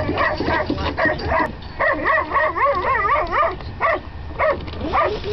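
Excited whippets barking and yipping over and over, with high whines that waver up and down in the middle: racing dogs keyed up just before the release.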